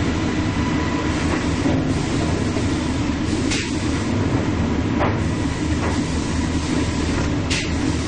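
Small-log softwood sawmill line running: a steady din of conveyor chains, rollers and drive motors, with a few sharp clacks as cants and boards knock on the chain transfer deck.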